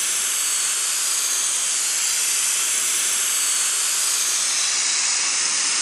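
Paint spray gun hissing steadily as it sprays paint.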